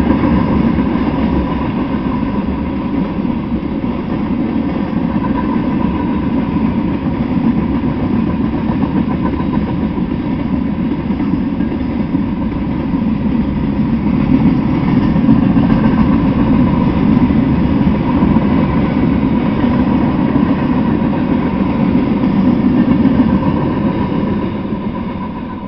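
Freight train cars rolling past close by: a steady loud rumble of steel wheels on the rails. The rumble dies away at the very end as the last cars go by.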